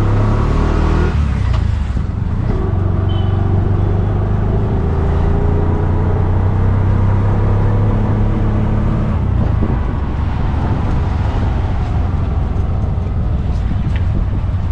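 Engine of the vehicle being ridden in running steadily, with a low note that shifts a little in pitch, over road and traffic noise.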